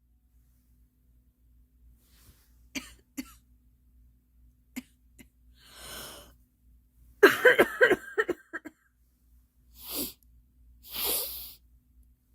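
A girl coughing: a fit of several quick, loud coughs about seven seconds in. Before and after it come a few breathy rushes of air, and there are faint clicks near the start.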